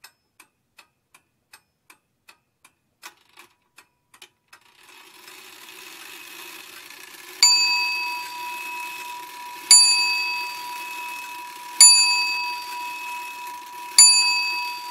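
Faint ticking, about three ticks a second, then a bell-like ding struck four times about two seconds apart, each ringing out over a hiss and a steady tone.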